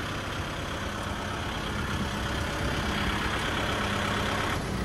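A vehicle engine idling steadily, with a low hum under a wide hiss that drops away near the end.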